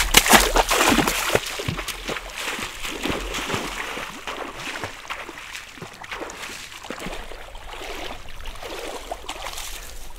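Footsteps wading through a shallow stream, the water splashing and sloshing with each step. A quick run of loud splashes in the first couple of seconds, then softer, steadier sloshing steps.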